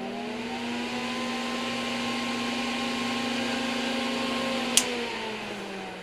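All-metal solder fume extractor fan, its filter removed, running at high speed: a steady hum of several tones over the hiss of moving air, finishing its rise to full speed in the first second. A sharp click comes near the end, and the fan's pitch then falls as it spins down.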